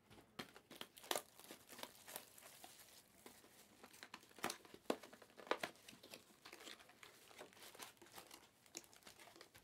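Foil wrappers of Panini Prizm trading-card packs crinkling faintly as they are handled, in short, irregular crackles.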